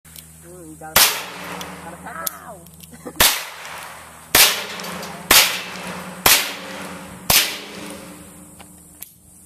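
Six handgun shots fired at a target, each a sharp crack with a short fading tail. The first stands alone, and the other five follow about a second apart.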